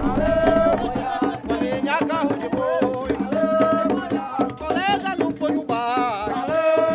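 Music: singing over hand drums and percussion.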